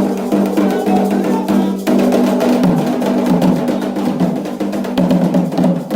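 Candomblé drumming: atabaque hand drums beating a fast, dense rhythm with other percussion, over a steady held pitched tone.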